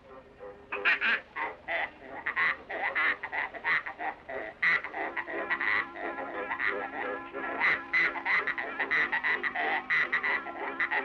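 Cartoon sound effect of a sow played like a squeezebox: a quick run of short, nasal, squealing honks pitched into a tune, about three or four notes a second. Steady accompaniment notes join underneath from about halfway through.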